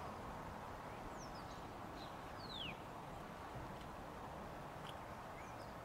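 Faint birdsong: a few short high chirps and one falling whistle over a quiet, steady outdoor background hiss.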